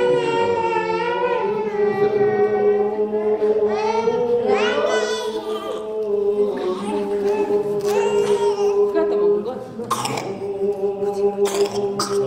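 Orthodox baptismal chant sung unaccompanied: steady held notes with voices rising and falling over them. Two short sharp knocks cut through, the second near the end.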